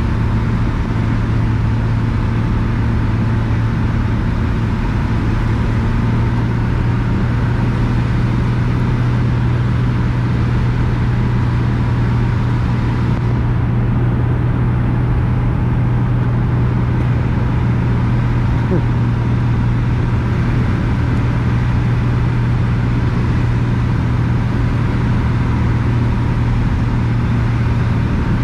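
Cabin noise of a single-engine piston light aircraft in flight: the engine and propeller drone steadily, loud and even, with a strong low hum.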